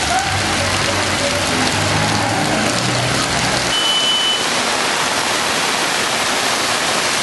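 Heavy rain pouring down in a steady, dense hiss. A low rumble under it stops about halfway through, and a brief high tone sounds just after.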